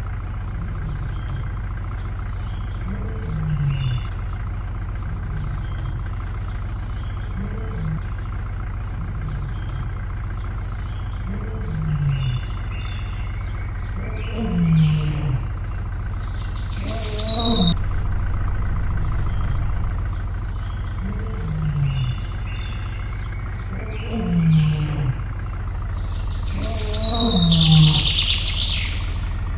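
Small birds chirping over a steady low hum, with short low falling calls repeating every few seconds and two louder hissing bursts, one about halfway through and one near the end.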